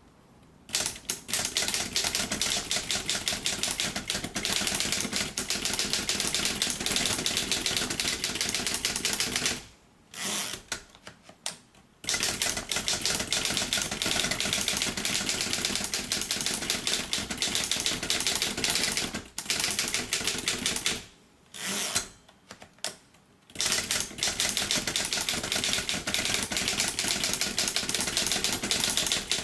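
Keys of a 1938 Seidel & Naumann Erika manual typewriter being struck in quick, steady runs of keystrokes. The typing breaks off briefly a few times, with a longer pause about two thirds of the way through.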